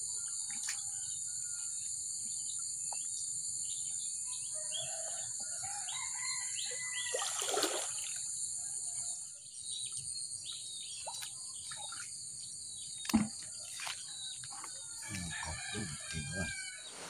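Rural outdoor ambience: a steady high-pitched insect drone that fades out about halfway through, scattered bird chirps, and a rooster crowing once about seven seconds in. A single sharp knock about thirteen seconds in is the loudest sound, followed by a few dull thumps near the end.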